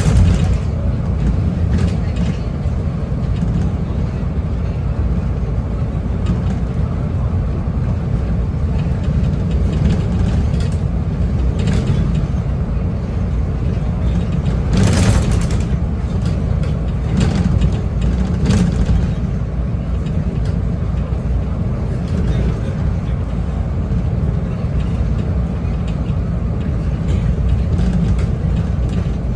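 Inside a single-deck bus driving along an open road: steady engine and road rumble, with scattered rattles and a brief louder rush of noise about halfway through.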